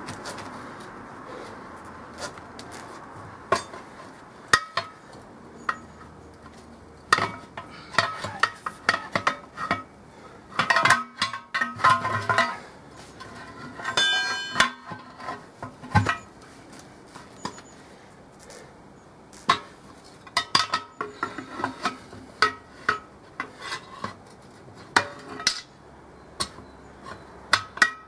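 Steel tyre levers clinking, knocking and scraping against a Series Land Rover's steel wheel rim as the tyre bead is levered off. They come as irregular metallic clicks, with a brief ringing clang about halfway through.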